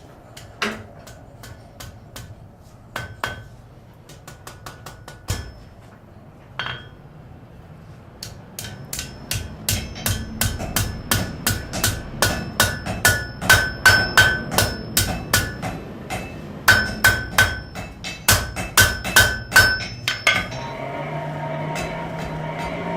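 Blacksmith's hammer striking metal on an anvil: a few scattered blows, then a steady run of about two ringing blows a second. Near the end the hammering stops and a steady machine hum starts.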